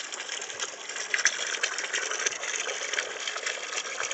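Soapy drain water from an LG steam washer gushing out of the drain hose in a steady stream and splashing into a plastic tub of sudsy water as the washer pumps out.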